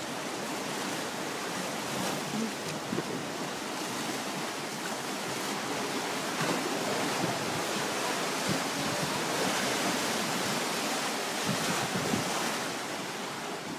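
White water of a river rapids ride rushing around a circular raft, a steady, unbroken churning.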